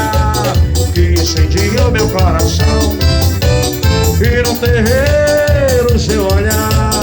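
Forró dance music playing loud, with a steady bass beat, regular high percussion and a sliding melody line.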